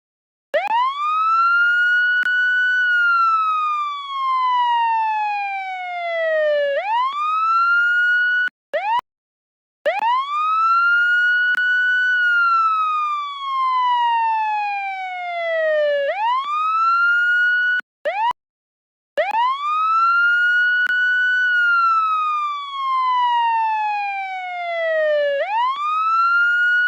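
Police siren sounding a slow wail. Each cycle rises quickly to a high tone, holds it for about two seconds, then falls slowly over about four seconds. It repeats about three times, with a brief silent break a little before a third of the way in and another about two-thirds of the way in.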